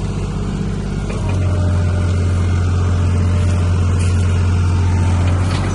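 Old Ford backhoe's engine running, stepping up to a louder, heavier hum about a second in and easing back near the end, as the machine works under hydraulic load.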